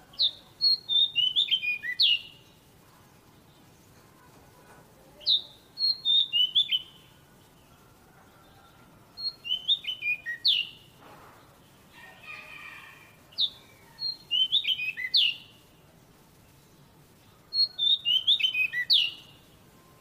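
Magpie-robin singing: five repeated song phrases about four seconds apart, each a quick run of short, sharp, clear notes ending on one louder note. A softer, quieter warble sounds between two of the phrases midway.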